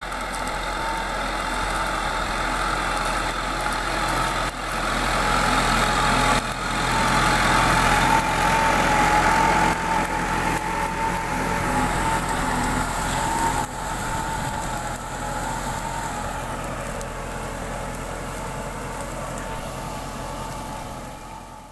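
Farmtrac 6080 4x4 tractor's diesel engine running steadily under load while pulling a mouldboard plough through stubble, with a constant whine and a few sudden changes in level.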